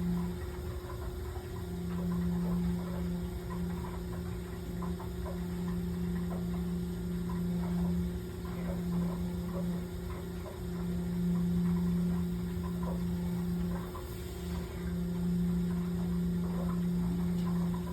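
Steady electrical equipment hum: a low drone with a higher tone above it. The lower tone drops out briefly every few seconds, and faint ticks sound over it.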